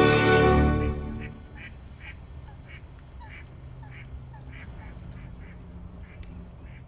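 Music fades out within the first second, followed by a string of short, separate animal calls, about one or two a second, with a few higher chirps among them.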